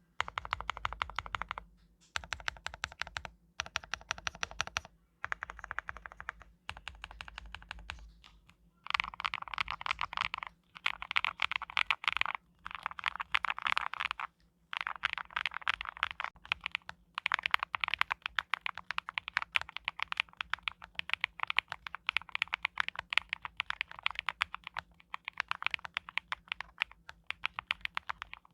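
Typing on an Owlab Spring custom mechanical keyboard with Sakura switches and Mondrian keycaps. The keystrokes come in several short bursts with brief pauses for the first eight seconds or so, then run on as fast, near-continuous typing.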